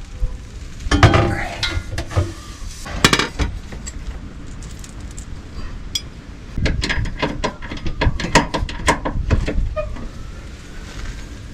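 Metal clanking and clinking as a steel aftermarket exhaust pipe is manoeuvred and slid into place under the car, in short bursts of knocks with a longer busy run of clanks in the second half.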